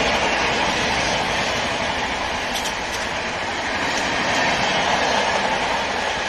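Shiv Ganga Express passenger coaches running past at speed: a steady, loud rush of wheels on rail, with a few faint clicks of wheels over rail joints around the middle.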